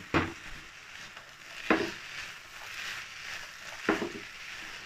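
Grated carrot halwa frying with a steady sizzle in a nonstick pan while a spatula stirs it, with three sharp knocks of the spatula against the pan, roughly two seconds apart.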